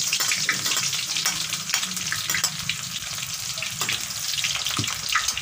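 Sliced shallots frying in hot oil, sizzling and crackling steadily.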